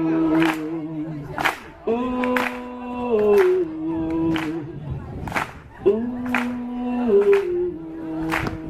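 Live group singing of a lively song, with held melody notes falling in steps in a repeating phrase over a sharp, steady beat about twice a second.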